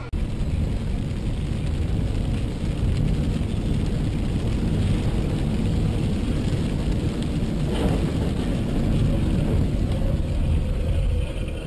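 Steady road noise of a car driving fast on a soaked highway in heavy rain, heard from inside the cabin, with a short louder burst of noise about eight seconds in.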